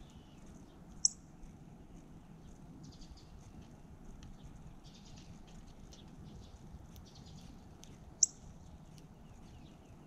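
Female northern cardinal calling two sharp, high chip notes about seven seconds apart, over faint high chatter in the background.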